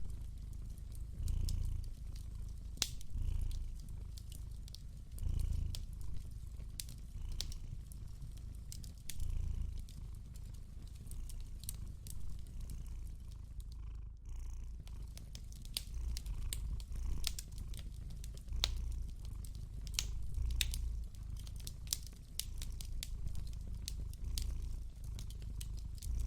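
A cat purring steadily, a low rumble that swells every second or two, with scattered sharp crackles of a wood fire over it.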